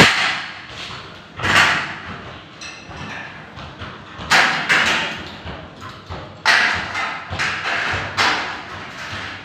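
Irregular knocks and clanks of galvanized metal studs being worked into place in a partition frame by hand, about seven strikes, the loudest at the very start, each ringing briefly in a bare, echoing room.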